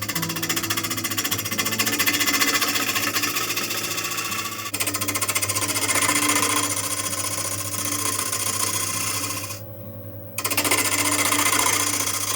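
Record Power Coronet Regent wood lathe spinning an oak blank while a turning gouge cuts it: a fast, rattling chatter over the lathe motor's steady hum. About ten seconds in the cutting stops for under a second, leaving only the hum, then starts again.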